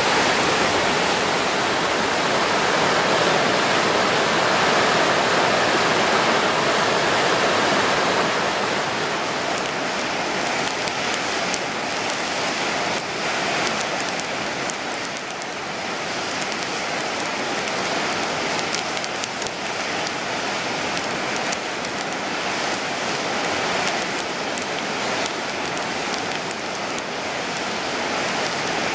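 River rapids rushing with a steady, dense whitewater noise. After about eight seconds the rush drops a little and the sharp crackles and pops of a wood campfire come in over it.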